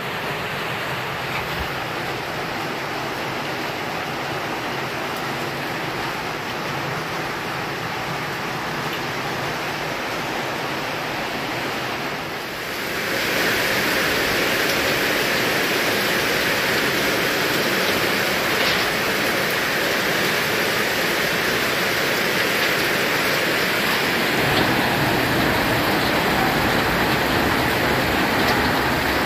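Steady heavy rain. About halfway through it turns louder and closer: rainwater running off a corrugated roof sheet and pouring into a water-filled plastic drum.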